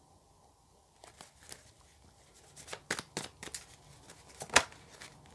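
Tarot deck being shuffled by hand: a run of irregular soft card flicks and snaps starting about a second in, the loudest snap near the end.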